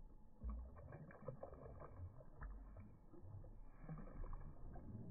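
Faint water sloshing and splashing as a large black bass, held in the water by a lip grip at the side of a small boat, moves and is revived before release, with a few low thumps against the boat.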